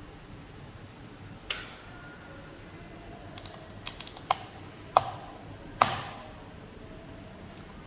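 Small hard clicks and taps of screwdriver and screw work on a laptop's hard-drive mounting screws: a handful of sharp clicks, four of them louder, some with a brief ring.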